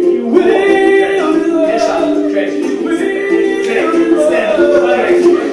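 Man singing a pop song into a microphone, accompanied by a strummed ukulele.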